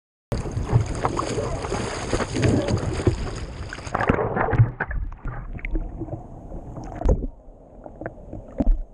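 Lake water splashing and sloshing over a GoPro camera held at the waterline, with waves washing across the housing. It starts suddenly, loud and hissing, and drops to quieter sloshing with scattered small splashes about four seconds in.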